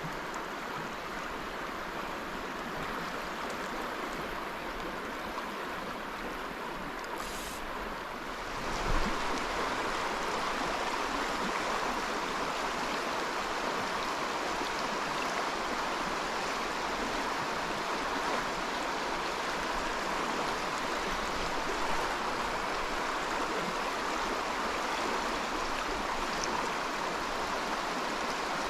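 Creek water running steadily over the streambed, an even rushing that gets a little louder about nine seconds in.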